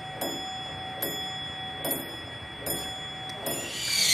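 A clock-like tick sounding about every 0.8 s, five times, over held high tones, like a ticking effect in a film score. A hissing swell rises near the end.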